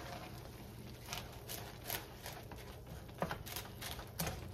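Wooden spatula stirring crisp fried potato sticks into a creamy mixture in a nonstick pan: scattered rustling, scraping and light knocks, with sharper knocks about a second in, around three seconds in and near the end, over a low steady hum.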